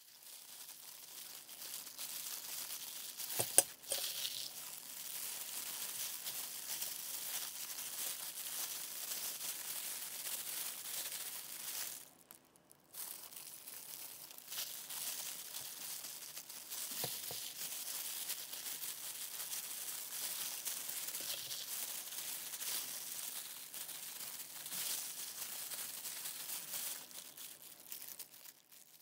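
Disposable plastic gloves crinkling and rustling as gloved hands work rice in a stainless steel tray, with a sharp knock a few seconds in, the loudest sound, and a softer one later. The rustling stops briefly about twelve seconds in.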